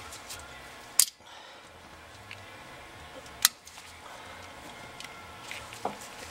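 Vise grips (locking pliers) being worked on a steel fuel line quick-disconnect tool: two sharp metallic clicks about two and a half seconds apart, with faint small clatters of metal on metal between them.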